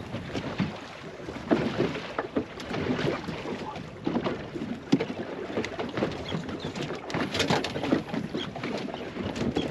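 Small waves slapping and knocking against the hull of a drifting open boat, an uneven run of splashes with wind on the microphone.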